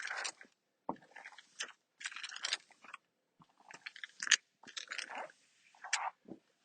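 Squeegee swiping across a wall decal in a series of short scraping strokes with brief gaps between them, pressing the decal flat onto the wall.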